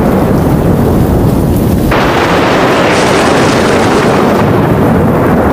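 Loud thunderstorm: continuous low rumbling thunder over rain. About two seconds in, a sharper crack of thunder brightens the sound for a couple of seconds before it settles back into the rumble.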